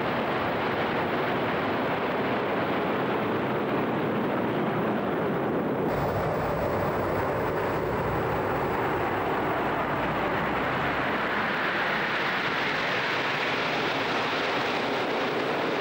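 A large formation of jet fighters flying overhead: steady jet engine noise. It changes character abruptly about six seconds in, and takes on a stronger, hissier upper edge in the second half.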